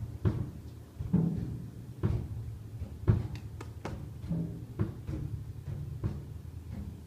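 Grand piano played low, heavy booming notes struck about once a second and left ringing, with a quick run of sharper strikes around the middle.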